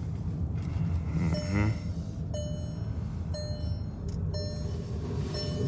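Car brakes with pads worn to the bone, scraping and squealing metal to metal as the car rolls slowly, a ringing squeal repeating about once a second over the low rumble of the car.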